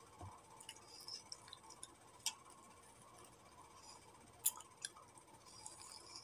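Faint mouth sounds of a person eating a banana: soft chewing and lip smacks with a few sharp clicks, the loudest two close together past the middle, over a faint steady hum.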